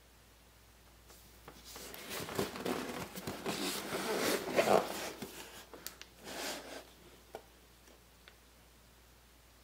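Rustling and scraping of packaging being handled. It lasts about six seconds, is loudest in the middle, and is followed by a couple of light clicks.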